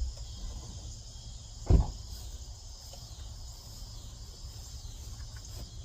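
2012 Nissan Maxima's 3.5-litre V6 idling as a faint steady low hum, with crickets chirping steadily over it and a single loud thump about two seconds in.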